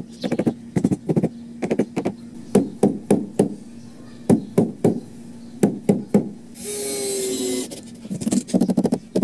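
Repeated sharp knocks on composite deck boards, coming in quick clusters of two to four. About two-thirds of the way through there is a hiss with a whine lasting about a second.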